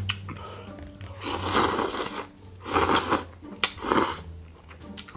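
Close-miked eating: a mouthful of crunchy food bitten and chewed in three loud crunching bursts, with a sharp click between the second and third.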